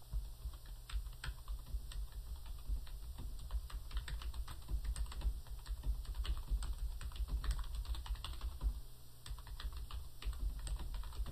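Typing on a computer keyboard: a quick, irregular run of key clicks as a sentence is typed, over a low steady hum.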